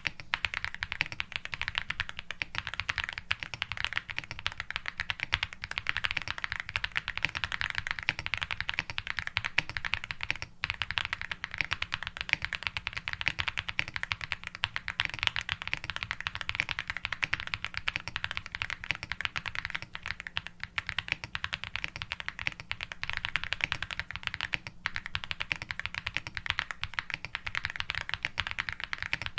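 Fast, continuous typing on a Meletrix Zoom98 SE mechanical keyboard, a dense run of key clicks with two brief pauses, about ten seconds in and again near the end.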